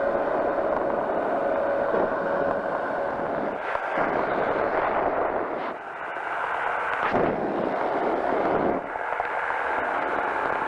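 Powered parachute's engine and propeller running steadily in flight, a dense rumbling drone that dips and swells a few times, with the engine note shifting about four and seven seconds in.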